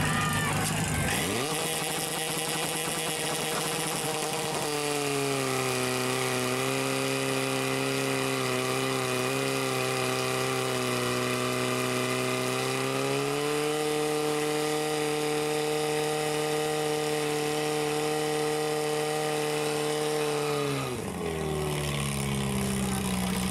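Portable fire pump's engine revving up hard about a second in and running at high speed while pumping water into the attack hoses. Its pitch shifts a couple of times as the load changes, and it drops as it is throttled down near the end.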